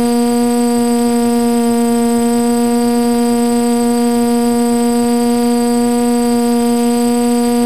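Multirotor drone's propellers and motors humming steadily at one even pitch with overtones, as it hovers in place.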